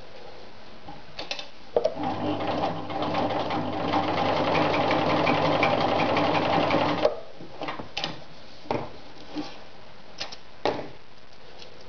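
Riccar 1300 electric sewing machine stitching through folded denim. It runs for about five seconds, getting louder over the first couple of seconds, then stops sharply. A few short clicks follow as the work is handled.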